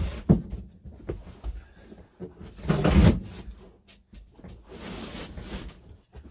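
A camper couch's wooden base being pulled out into a bed: wood sliding and knocking, with a heavy thump about three seconds in as the cushions are laid flat, then softer rustling of the cushion fabric.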